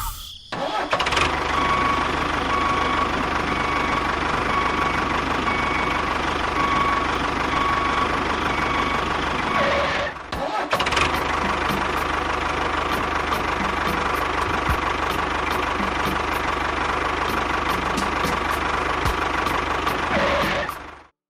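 A small motor running steadily, dropping out briefly about ten seconds in and stopping abruptly near the end.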